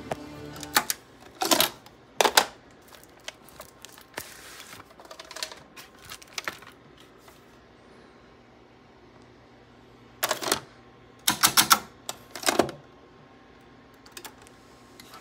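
Hard plastic 8-track tape cartridges clacking and rattling as they are pulled out of and handled at an 8-track tape deck, in two spells of clatter: several sharp clacks between about one and two and a half seconds in, and another cluster around ten to thirteen seconds. The last of the tape's music stops in the first second.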